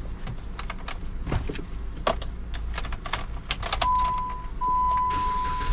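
Keys jangling and sharp clicks as the Jeep Patriot is got ready to start, then a dashboard warning chime sounds as a long, steady beep, broken once briefly. Right at the end a low engine rumble sets in as the engine is cranked.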